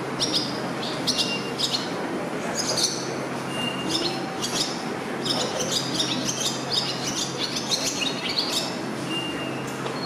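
Breeding male barn swallow singing: a twittering run of high chirps and buzzy notes in several bursts, the longest lasting about four seconds in the second half.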